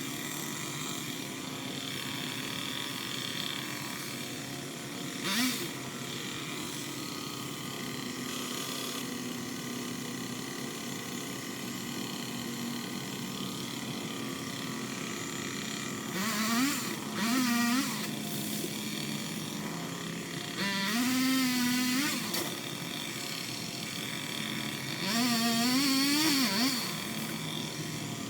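A small motor running steadily, revved up and let back down several times, each rev a rising then falling whine with the loudest spells in the second half.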